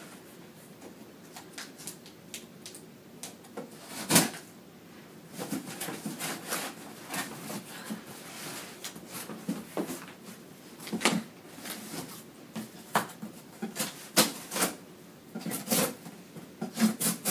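Packing tape on a cardboard shipping box being cut open with a small hand tool: scattered scrapes, clicks and taps on the cardboard, with a sharp knock about four seconds in and busier scraping after that.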